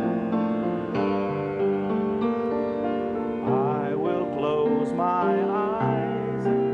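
Instrumental passage of a piano-led song: sustained piano chords, with a wavering melody line rising above them from about halfway through.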